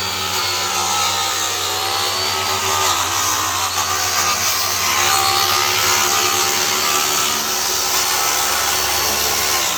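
Electric power sander running steadily against wood siding, a constant motor whine over a loud sanding hiss, as the old coating is sanded off.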